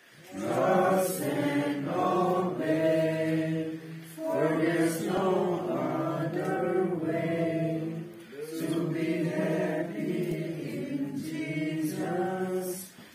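A group of voices singing a slow hymn together, in long held phrases with short breaks between them.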